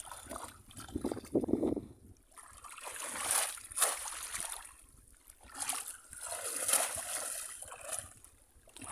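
Shallow floodwater splashing and sloshing as bamboo cone fish traps are plunged into it and people wade through it. The sound comes in several surges, the biggest about a third of the way in and again about two-thirds through.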